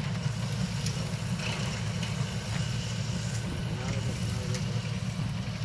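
Tractor engine running steadily while it pulls a seed drill, a low even drone.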